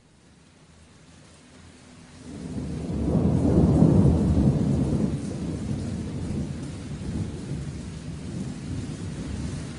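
Thunderstorm sound effect opening a song: rain fading in, with a deep rolling thunder rumble that swells about two seconds in, peaks around four seconds, and settles back into steady rain.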